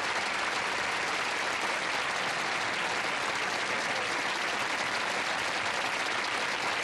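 Studio audience applause, a steady even clapping from a sitcom broadcast heard through the TV audio.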